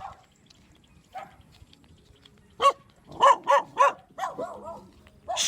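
A dog barking at the passer-by: a single bark about two and a half seconds in, a quick run of three barks just after, softer barks, and one more bark near the end.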